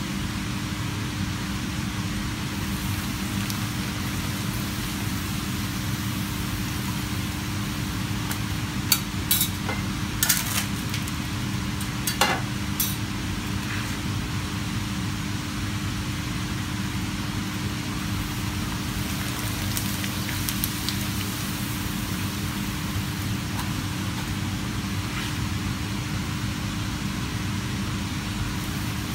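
Hot oil sizzling steadily in a frying pan as pappadoms are deep-fried, over a steady low hum. A few sharp metal clinks of the spatula and tongs against the pan come about a third of the way through.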